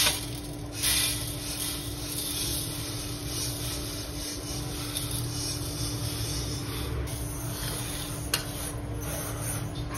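Dry-roasted rice grains pouring and sliding from an aluminium wok onto a steel plate, a steady rustling hiss of grain over metal, with a knock or two in the first second. Near the end a slotted steel spoon scrapes through the grains, spreading them out.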